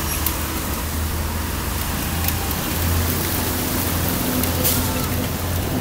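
Bicycle tyres running through shallow floodwater, a steady watery hiss over a low rumble.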